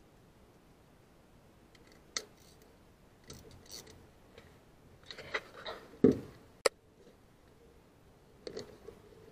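Scattered light clicks and knocks of metal tools and fittings being handled, with a duller thump and a sharp click about six seconds in as the loudest sounds.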